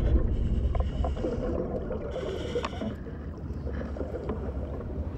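Muffled underwater sound of a scuba dive: a steady low rumble with scattered clicks and bubbling from the diver's breathing. It is loudest at the start and eases a little after the first couple of seconds.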